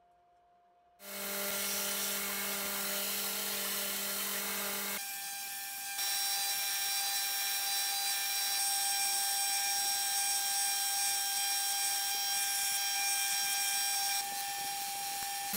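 Homemade belt grinder switched on about a second in, its electric motor and abrasive belt then running steadily with a constant whine.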